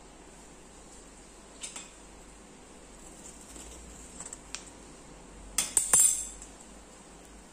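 A few light clicks, then a cluster of louder clinks and knocks about five and a half to six seconds in: a spoon and a coconut-shell mould knocking against a ceramic plate as steamed wheat-flour cakes are turned out of the shells.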